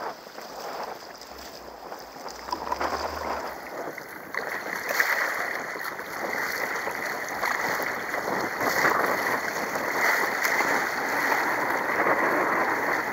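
Rough, choppy sea water rushing and splashing against an RTM Tempo sit-on-top kayak's hull as it is paddled, growing louder about four seconds in.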